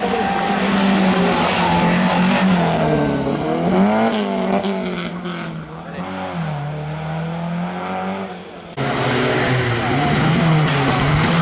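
Rally car engines revving hard, the pitch climbing and dropping with throttle and gear changes, with some tyre noise. The sound cuts abruptly to another car running at full throttle near the end.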